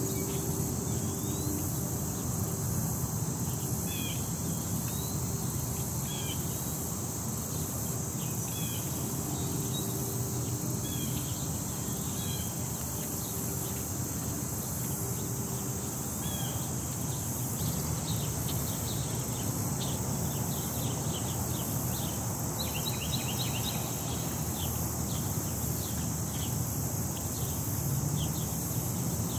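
Outdoor ambience of a steady high-pitched insect chorus and low wind rumble on the microphone, with small birds chirping now and then and a quick run of chirps about two-thirds of the way through.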